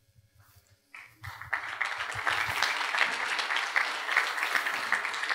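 Audience applause from a seated crowd. It starts about a second and a half in, after a near-silent pause, and carries on as steady clapping.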